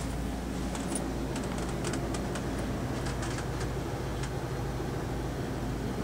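A steady low engine hum, with light clicks and taps scattered through it.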